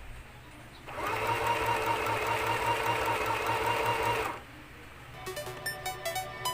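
Small portable 12-stitch household sewing machine running steadily for about three seconds and then stopping. Electronic music begins near the end.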